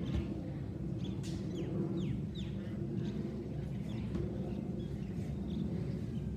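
Jet engines of an Airbus A320-216 passing overhead, heard as a steady low rumble. Birds chirp over it, with a few quick falling chirps about two seconds in.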